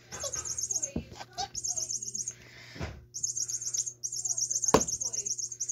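Electronic cat-toy mouse chirping like a bird: runs of rapid, high-pitched trills with a short break about halfway through. A single sharp knock a little before the end.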